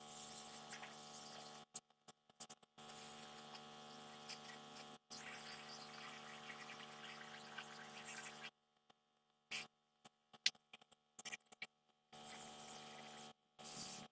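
A small electric motor humming steadily, stopping and starting abruptly a few times, then only scattered light clicks for the last few seconds.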